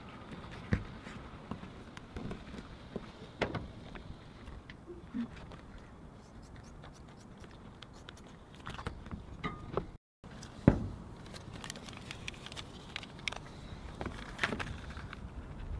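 Handling sounds of Eternabond sealing tape being laid, cut and pressed down on a van's metal roof: scattered crackles of the peeled tape, light taps and scrapes, and one sharp knock about two-thirds of the way through.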